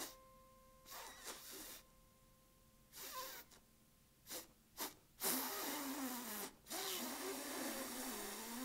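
A man's breathy, hissing vocal noises: a few short puffs, then two longer rasping exhales near the end. A single piano note fades out at the start.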